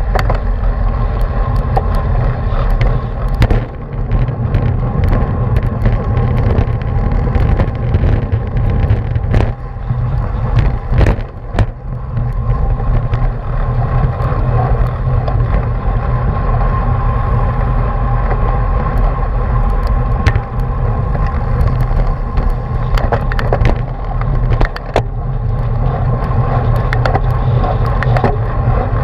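Wind buffeting the microphone of a bike-mounted camera as a road bicycle rolls fast over pavement, a steady heavy rumble with road rattle and a few sharp knocks from bumps.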